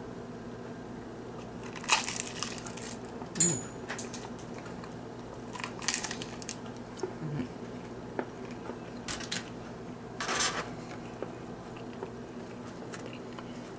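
Crispy breaded fried chicken being bitten and chewed close to the microphone: a series of short crunches, the sharpest about two seconds in and a second and a half later, then a few more spread through the rest.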